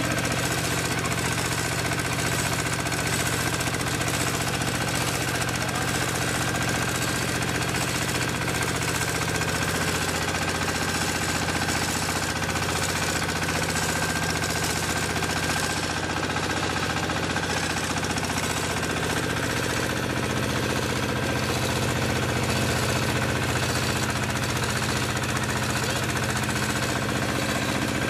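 Mini auto rice mill running under load while milling paddy: a steady mechanical drone with a constant hum, the pitch of the hum shifting slightly about twenty seconds in.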